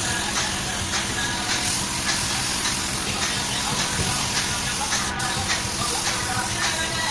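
Compressed-air paint spray gun hissing steadily, with background music with a regular beat over it.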